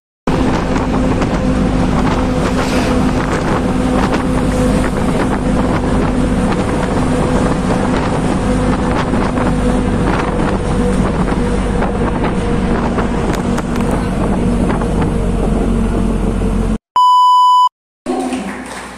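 Engine and road noise heard from inside a moving passenger vehicle, a steady drone with a faint hum. Near the end it cuts off suddenly and a single short electronic beep sounds.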